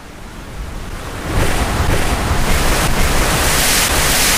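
Ocean surf: a rushing of waves starts softly, swells about a second in and keeps washing steadily.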